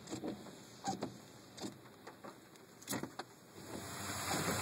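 Scattered taps of raindrops on a car's roof and glass, heard from inside the cabin. About three and a half seconds in, a steady hiss of rain and wet outdoor air rises as the side window is opened.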